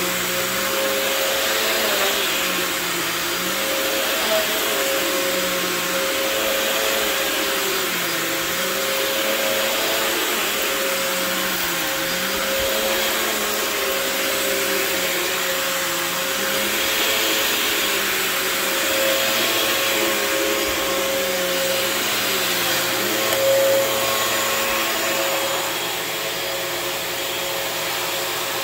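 Phantom Twister bagless upright vacuum cleaner running: a steady motor whine over rushing air, with a lower hum that wavers in pitch every few seconds.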